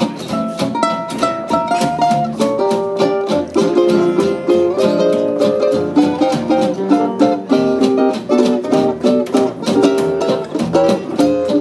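Ukulele solo: a picked melody line of quick notes over the band's steady strummed chord accompaniment.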